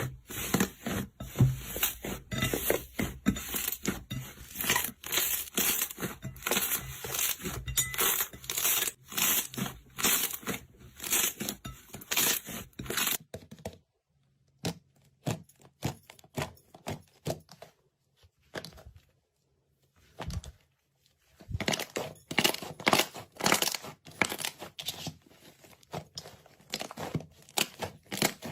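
Slime being squished and stretched by hand, making a dense run of small wet pops and clicks. It thins to scattered pops with short silences around the middle, then picks up again.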